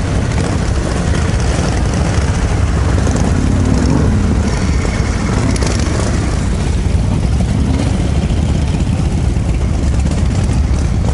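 Many vintage Harley-Davidson V-twin motorcycles idling together in a dense, steady rumble, with a couple of brief revs that rise and fall.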